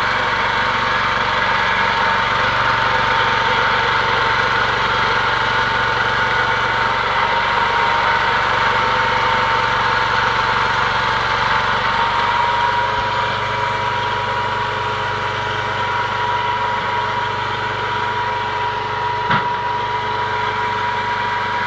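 Homemade bandsaw sawmill running under engine power with its power feed on, cutting through a log: a steady engine drone with a steady high whine over it. The level drops slightly about two-thirds of the way through, and there is one sharp click near the end.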